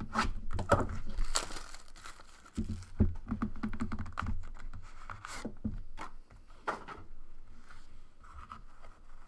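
Plastic shrink wrap on a sealed trading card box being slit with a box cutter and torn away, crinkling and tearing, followed by the cardboard box being handled and opened with light scrapes and knocks.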